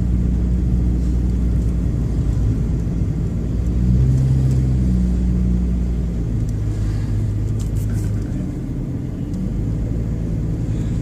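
A car's engine and road noise heard from inside the cabin while driving: a continuous low drone whose engine note shifts in pitch about four seconds in and again a couple of seconds later.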